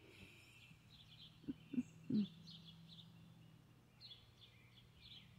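Faint, repeated bird chirps over a low steady hum. Three short low sounds come about one and a half to two and a quarter seconds in.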